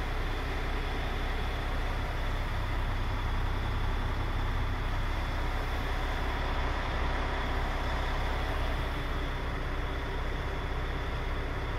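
Paccar MX 460 bhp straight-six diesel of a DAF XF105 tractor unit idling steadily, heard from inside the cab as a constant low hum.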